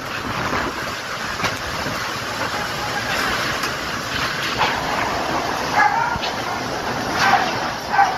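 Storm wind and driving rain making a steady rushing noise, with a dog barking a few times in the second half.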